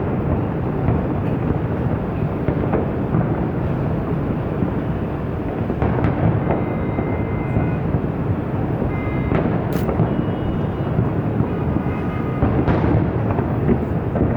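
Fireworks display: aerial shells bursting one into another in a continuous rolling rumble, with one sharp crack about ten seconds in.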